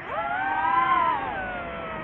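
DJI FPV drone's motors and propellers whining: the pitch sweeps up sharply as the throttle is punched, peaks about a second in, then slides back down as it eases off.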